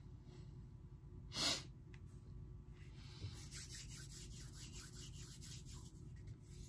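Quiet room tone with one short, sharp breath through the nose about a second and a half in, then faint, rapid scratchy rubbing.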